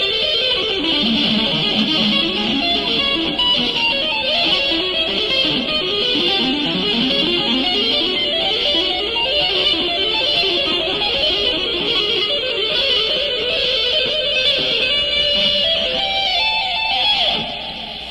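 Electric guitar music: a busy run of many quick notes over a steady backing, dipping in level near the end.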